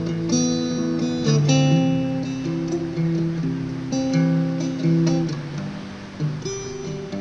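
Acoustic guitar strummed, playing a chord progression in the instrumental gap between sung lines, with the chord changing about once a second.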